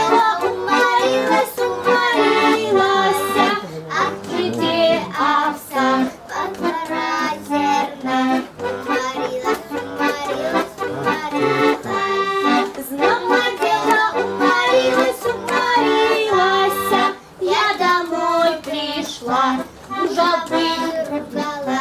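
A girl singing a Russian folk song to accordion accompaniment.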